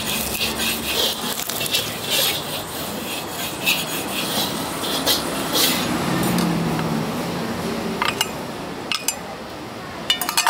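Metal spatula scraping and stirring in a wok in irregular rasping strokes, with a few sharp clinks near the end.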